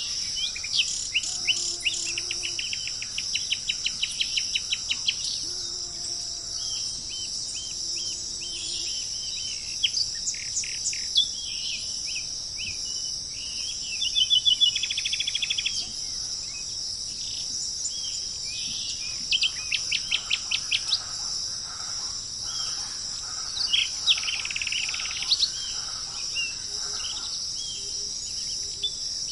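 Small birds chirping in rapid repeated series, with a fast trill about halfway through, over a steady high-pitched hiss like insects.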